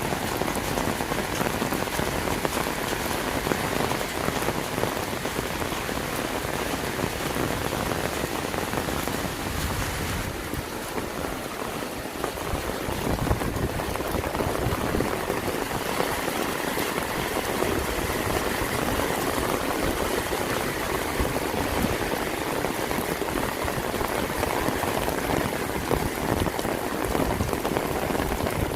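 Steady rain falling, a dense even hiss of drops on hard surfaces that eases slightly for a couple of seconds about ten seconds in.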